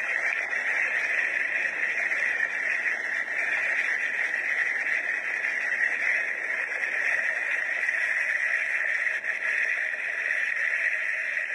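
Steady rushing noise of a muddy flash flood flowing, even and unbroken.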